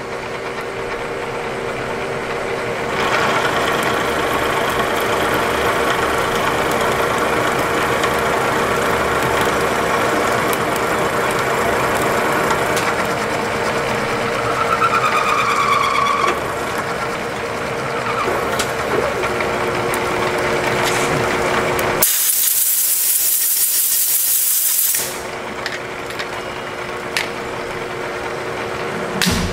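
Milling machine spindle running while an end mill cuts a groove into a round metal part: a steady hum under a rough cutting noise, with a brief rising squeal about halfway through. Near the end the cutting gives way to a loud hiss for about three seconds, then the spindle hum alone with a few clicks.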